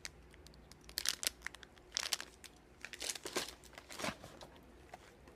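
Plastic snack wrappers crinkling as packages are handled, in irregular bursts of crackling, loudest about one and two seconds in.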